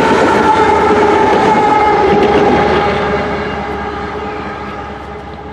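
Canadian Pacific GE diesel-electric locomotive, the rear pusher unit of a coal train, running past and moving away. Its steady hum sinks slightly in pitch and fades from about three seconds in.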